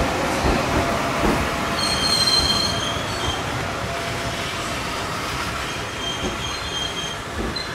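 Train running slowly at a station platform, with a steady rumble and high squeals that come twice, about two seconds in and again near the end.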